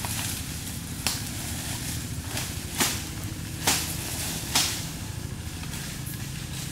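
Stihl chainsaw idling with a steady low hum, crossed by four or five sharp cracks at irregular intervals.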